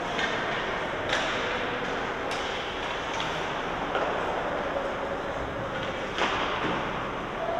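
Ice hockey game in a rink: a steady din of crowd and play with a few sharp knocks, about a second in, a little after two seconds and about six seconds in.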